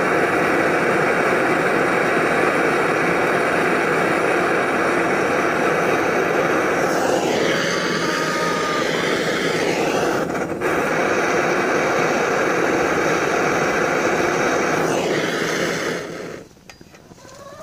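Hand-held propane torch hissing steadily as its flame heats diesel in a tin can, then cutting off sharply about a second before the end.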